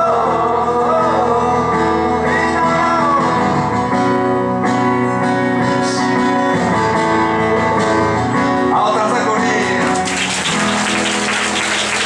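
Live acoustic guitar and singing as the song comes to its end; audience applause breaks out about ten seconds in.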